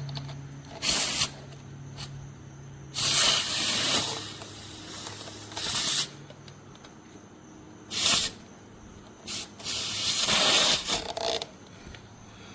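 Air hissing in about six short bursts, each lasting from a fraction of a second to about a second and a half, over a faint low hum that fades away in the first few seconds.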